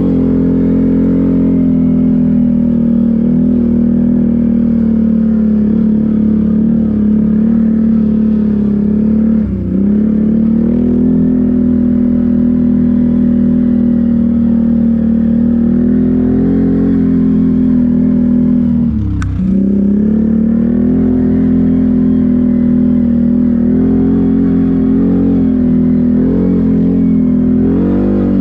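ATV engine running under steady throttle on a forest trail, its pitch dipping briefly and picking back up twice as the throttle is eased off and reapplied. A single sharp click sounds just before the second dip, and the engine picks up again near the end.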